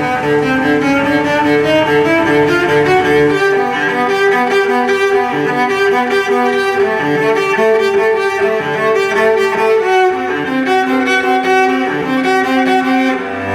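Instrumental background music with a moving melody of sustained pitched notes.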